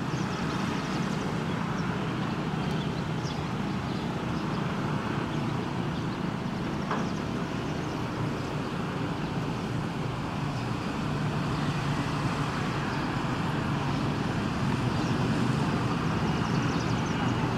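Airbus A321 jet engines running at taxi power: a steady rush that grows a little louder over the last few seconds.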